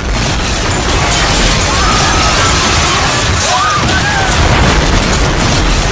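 Loud, continuous rumbling roar with a heavy low end, typical of phone footage of an earthquake. Over it, people's cries rise and fall, about two seconds in and again a little later.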